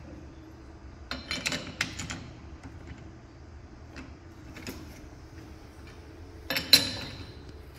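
Steel chuck key and jaws of a four-jaw lathe chuck clinking and rattling as the jaws are tightened onto a shaft. A cluster of clinks comes about a second in, and a single sharp metal clank rings briefly near the end.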